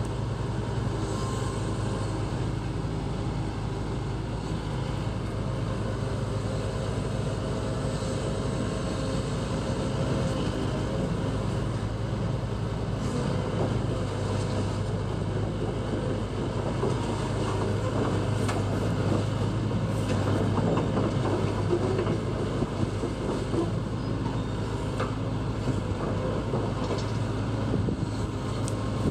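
Hitachi ZX75US excavator's diesel engine running steadily while the boom and arm are worked, a little louder for a few seconds past the middle.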